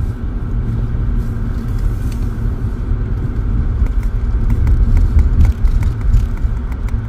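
Steady low rumble of a car on the move, engine and tyre noise as heard inside the cabin.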